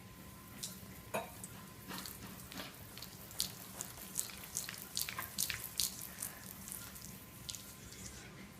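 Water dripping and splashing in irregular small drops, a run of sharp little clicks that crowd together about halfway through.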